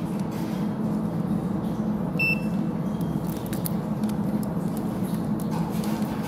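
A steady low machine hum throughout, with one short high beep from a clamp meter about two seconds in as its test leads touch the motor's winding leads.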